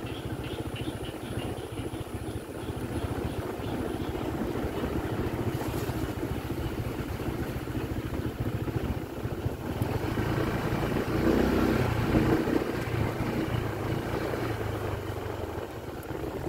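Small motorcycle engine running while riding along a rough road. It gets louder about ten seconds in and eases off again near the end.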